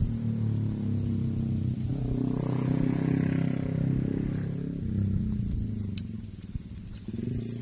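A motor engine running steadily, its hum growing louder about two seconds in and easing off again a few seconds later.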